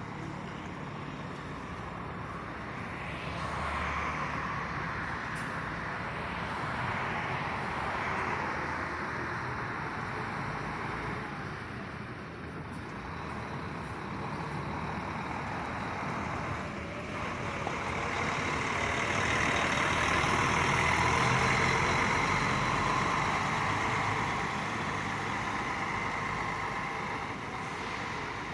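Intercity buses' diesel engines running and moving at a bus terminal, a steady rumble with a noisy hiss over it. It swells as a bus draws close, loudest a little over halfway through, then eases off.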